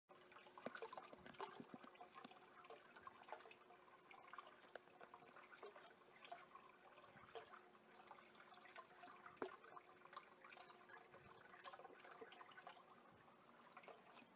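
Faint aquarium water sounds: scattered small drips and trickling over a steady low hum.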